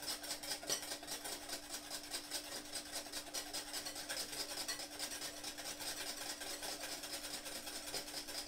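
Wire balloon whisk beating double cream by hand in a glass bowl, rapid even scraping and swishing strokes as the wires brush the glass; the cream is thickening as it whips.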